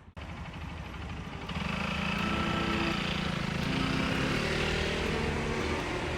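A vehicle's motor humming steadily, with several steady tones that grow louder about a second and a half in and then hold.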